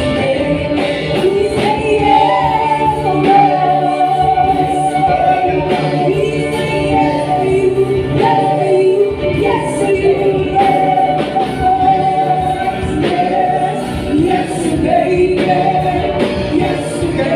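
Worship band and singers performing a praise song: a sung melody with held notes over drums and backing instruments.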